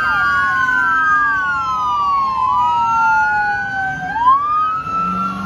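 Police siren wailing, several overlapping tones sweeping slowly up and down.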